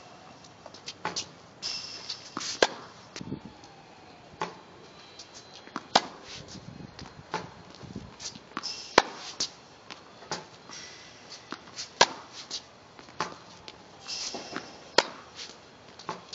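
Tennis racket striking balls, one sharp hit about every three seconds, with quieter ball bounces, footsteps and rubber shoe squeaks on the hard court between shots.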